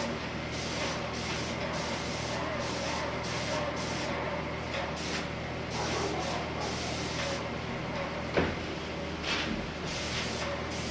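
Airless paint sprayer in use: the gun's spray hisses in short passes, starting and stopping many times over a steady low hum. There is one sharp knock about eight seconds in.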